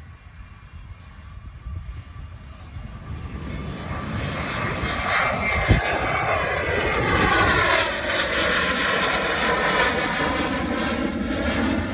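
Private jet's engines during its takeoff run, the roar building about three seconds in and growing loud as it passes, with a whine that falls in pitch. A brief thump near the middle.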